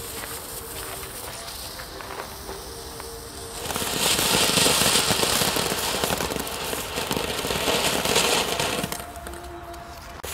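Weco Flitze Feuerstein ground fountain firework: its lit fuse sputters quietly for the first few seconds. Then, nearly four seconds in, the fountain ignites with a loud hiss full of crackling for about five seconds before dying down.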